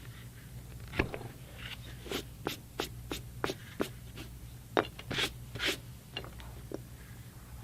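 Leather edger shaving the edge of a leather knife sheath: a series of short scraping strokes at an irregular pace, with a few sharper clicks.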